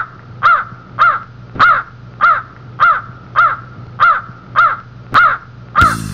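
An animal call, crow-like, repeated evenly about eleven times, roughly twice a second; each call is short and rises then falls in pitch, over a low steady hum. A rock band with bass guitar and drums comes in just before the end.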